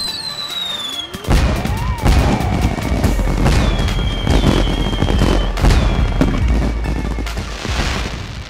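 Intro music mixed with firework sounds. A tone sweeps up and back down, then deep booms set in with many sharp bangs and several falling whistles.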